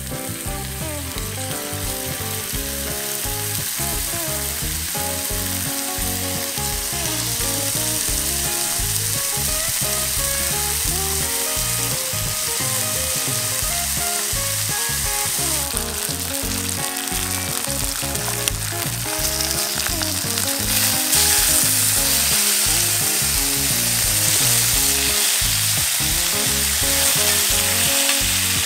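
Bacon strips frying in a cast-iron skillet, a continuous sizzle that grows steadily louder as more strips go in and is brightest in the last third.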